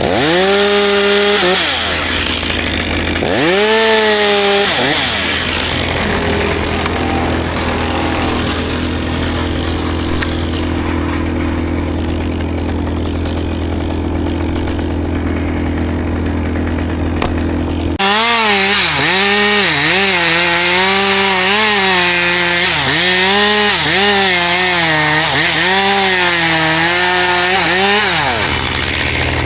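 Chainsaw cutting cherry wood: two short bursts of revving near the start, then a long stretch of running about halfway through where the pitch keeps dipping and recovering as the chain bites. A steady low engine hum runs underneath in the first half.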